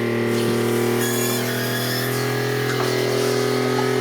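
Spectra watermaker's electric pump running steadily with a constant humming drone, on its first test run as water starts coming through the system.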